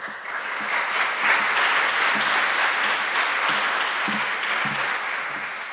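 A small seated audience applauding, the clapping building over the first second, holding steady, then fading away near the end.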